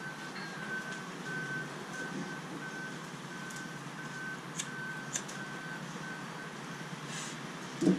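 A vehicle's reversing alarm beeping steadily, about two beeps a second, over an even hiss of rain. A couple of sharp clicks about five seconds in as a lighter is struck.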